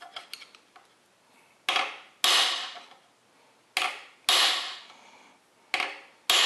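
Hammer blows on a steel drift punch set against an oil-pump locating dowel pin in a small-block Chevy 350's main bearing cap: three pairs of sharp metallic strikes, each ringing briefly. The pin is being knocked a few thousandths of an inch closer to its mate so the oil pump will drop straight onto both dowels.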